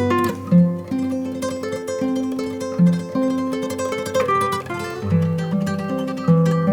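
Background music: plucked-string instrumental, guitar-like notes playing a melody over bass notes.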